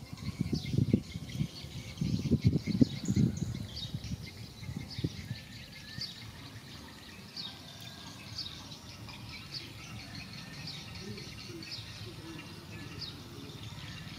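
Birds chirping, short high calls repeating about once a second. During the first few seconds there is a run of louder low rustles and knocks close by.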